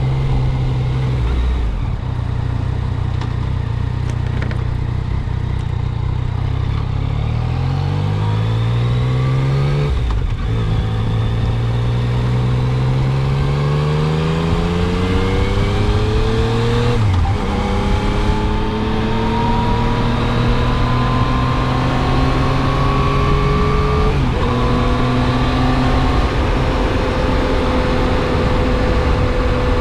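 Motorcycle engine accelerating up through the gears. Its pitch climbs, drops sharply at each of three upshifts, climbs again after each one, and settles to a steady note at cruising speed near the end.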